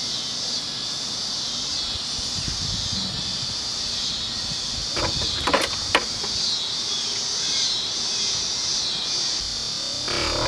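Steady high-pitched drone of summer insects, with a few sharp clicks about halfway through.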